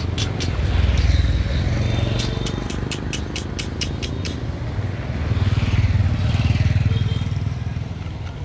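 Street traffic with motorbikes passing: a low engine rumble swells about a second in and again past the middle. A run of sharp clicks sounds over the first half.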